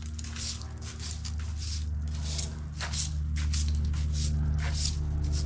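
Short hand broom sweeping fallen leaves across brick paving: quick swishing strokes, about two a second, over a steady low hum.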